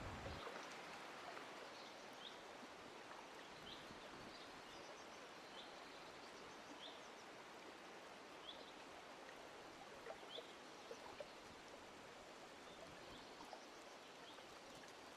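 Faint outdoor ambience with a steady hiss, over which a bird gives a short, sharp call again and again, about once every second and a half.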